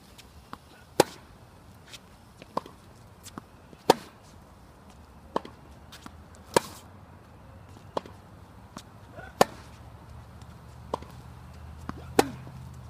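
Tennis rally: sharp racket-on-ball hits about every second and a half, alternating louder and softer as the ball goes back and forth, with fainter ball bounces between them.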